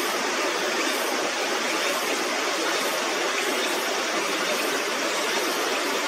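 Steady rushing of water pouring over a river weir, running at full flow after a typhoon.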